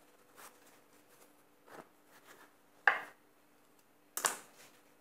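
Cloth kitchen towel rustling and swishing as it is handled and laid over balls of bread dough on a metal tray, with a few short soft brushes; the loudest come about three seconds in and just after four seconds. A faint steady hum lies underneath.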